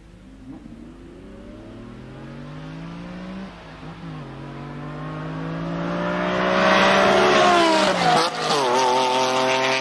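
A BMW M5 E60's V10 and a Lamborghini Diablo accelerating hard side by side in a drag race. Their engine note climbs in pitch, breaks at gear changes about four and eight seconds in, and grows louder as the cars approach and pass.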